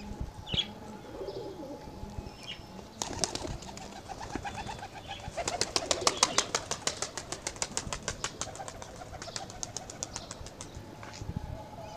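Domestic pigeons: a few soft coos, then from about three seconds in, pigeon wings clapping and beating rapidly as birds take off and fly, a fast even run of wingbeats that lasts several seconds before it thins out.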